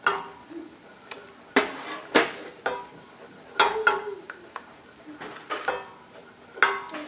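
A wooden spoon stirring a butter-and-flour paste in a metal saucepan, knocking against the pan about eight times at irregular intervals, some knocks ringing briefly. The paste is being stirred briskly to keep lumps from forming.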